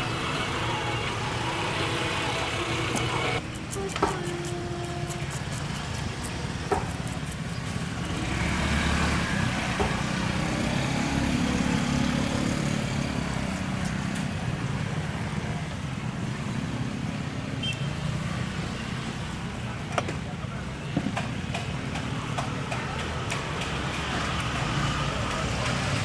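Street ambience with steady traffic noise and a vehicle's engine rumble that swells about a third of the way in, over faint background voices. Three sharp knocks of a knife on a wooden chopping block stand out, as fish are cut.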